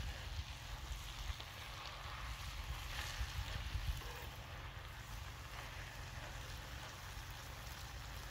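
Wind rumbling on the microphone over a faint, even hiss, with soft knocks of a ladle stirring fava beans in a clay pot over a wood fire, a little busier in the first half.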